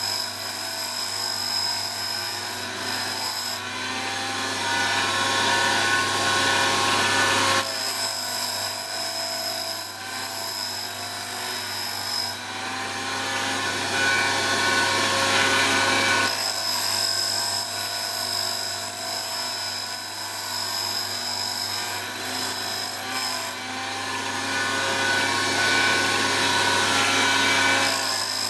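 Wolf Precision Valve Refacer running, its grinding wheel recutting the face of a stepped exhaust valve at 30 degrees as the valve turns slowly against it: a steady motor hum under a grinding hiss. A high ringing tone drops out and comes back in stretches of several seconds.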